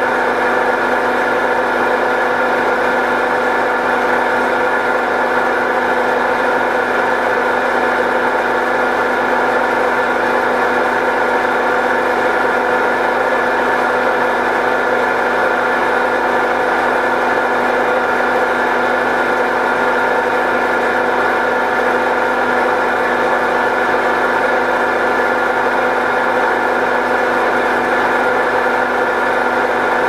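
Zanussi ZWF 1621 W front-loading washing machine spinning at high speed, a loud steady drone with several whining tones from its badly worn drum bearings.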